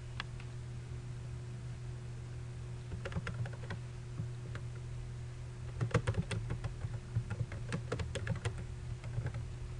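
Computer keyboard typing: a few keystrokes about three seconds in, then a longer, quicker run of keystrokes from about six seconds, over a low steady hum.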